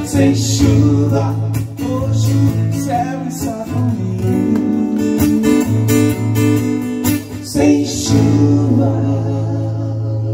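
Acoustic-electric guitar strummed through a PA, playing a song, with a man's singing voice joining in places.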